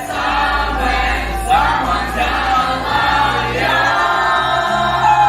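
Musical-theatre song: several voices singing together over a backing accompaniment with long held bass notes.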